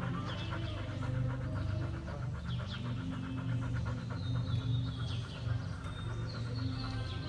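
Steady low hum of a large indoor arena, with a rapid fluttering tick through the first few seconds and a few short, high bird chirps.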